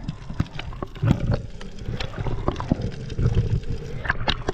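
Underwater sound through a freediver's camera: muffled water rumble with scattered sharp crackling clicks. Near the end comes a cluster of splashes as the camera breaks the surface.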